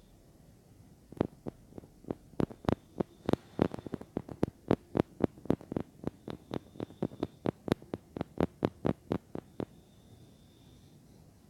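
A quick, uneven run of sharp close-up clicks on a miniature ASMR microphone, about three to five a second. It starts about a second in and stops a couple of seconds before the end.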